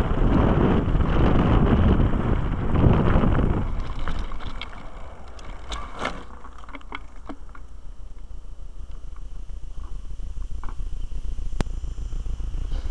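Wind buffeting the microphone of a camera on a moving mountain bike, with rattling over the rough dirt track. About four seconds in the rush drops away, leaving quieter rolling over loose gravel with scattered sharp clicks.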